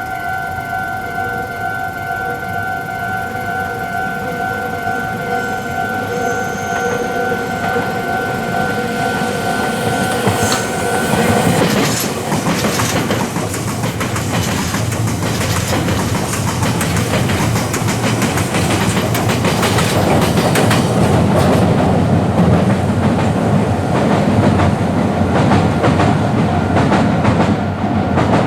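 Railway level-crossing alarm ringing steadily, then about ten seconds in a Meitetsu electric commuter train passes over the crossing, its wheels clattering over the rail joints and drowning out the alarm until near the end.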